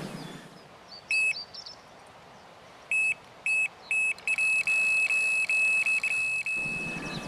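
Electronic carp-style bite alarm on a fishing rod sounding. One high beep, then three spaced beeps, then a rapid near-continuous run of beeps for about two seconds: a fish has taken the bait and is pulling line, here a tench.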